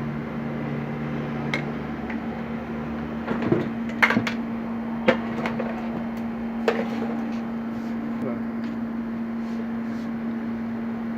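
A Janome 1712 sewing machine being handled while opened up: a few sharp clicks and knocks of its parts, mostly between about three and seven seconds in, over a steady low hum.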